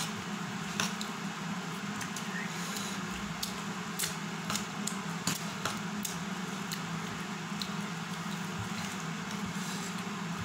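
Eating by hand from a steel plate: scattered light clicks and scrapes of fingers and rice against the plate, with wet chewing, over a steady low hum.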